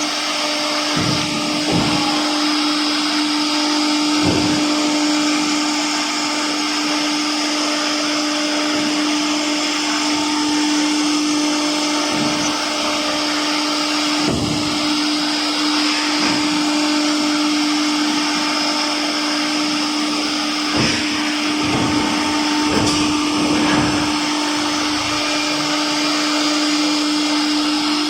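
Air-cooled spindle of a STYLECNC STM1325 CNC router running with a steady whine and hiss while the bit cuts wood, with a few short knocks scattered through.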